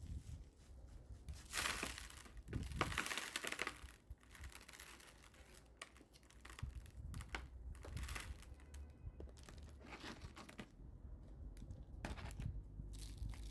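Crinkly rustling from hands handling succulents, potting soil and pots during repotting. There are two longer spells about two and three seconds in, then lighter scattered rustles and small clicks.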